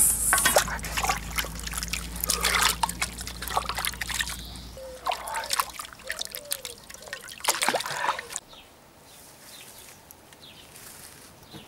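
Water splashing and trickling as a freshly scaled carp is rinsed by hand in an enamel basin of water. The splashing stops about eight seconds in.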